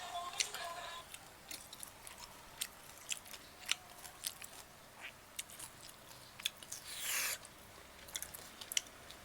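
Close-up mouth sounds of someone chewing and biting grilled chicken: irregular wet clicks and smacks. About seven seconds in there is a brief, louder rushing sound.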